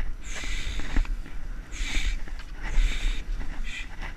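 Skis hissing and scraping through snow in a series of quick turns, about one hiss a second, with a low wind rumble on the helmet camera's microphone.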